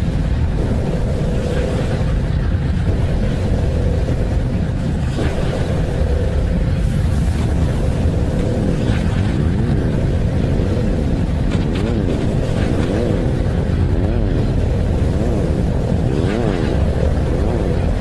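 Space sonification presented as a planet's 'sound', spacecraft data turned into audio: a deep steady rumble with a constant hum, joined about halfway through by tones that keep sweeping up and down in pitch.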